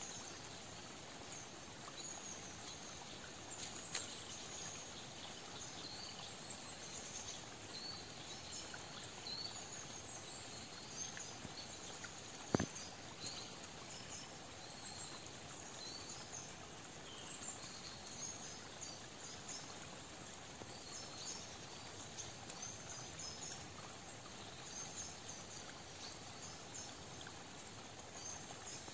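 Faint woodland ambience: a steady soft hiss with many short, high chirps scattered throughout. A single sharp click stands out about halfway through.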